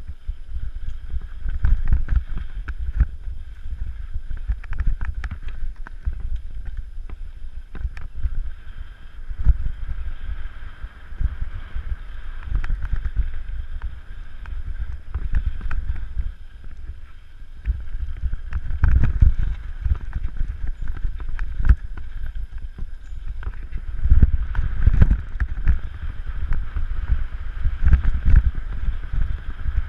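Wind buffeting the microphone as a mountain bike rolls fast downhill over rough trail, with many knocks and rattles from the bike. The wind swells hardest about 19 seconds in and again in the last few seconds.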